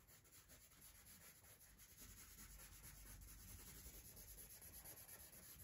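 Faint scratching of a pencil on sketch paper, quick back-and-forth strokes drawing a tree's branches, starting about two seconds in.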